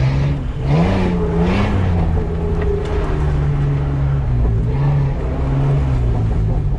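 Mitsubishi Pajero's V6 engine pulling the vehicle along at low speed. Its pitch rises briefly about a second in, then settles to a steady run with a short dip later on.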